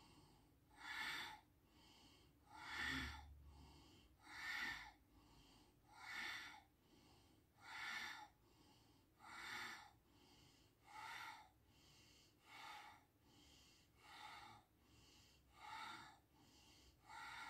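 Bhastrika (bellows) breathing: strong, forceful breaths coming evenly about once every second and a half, each with a fainter breath between.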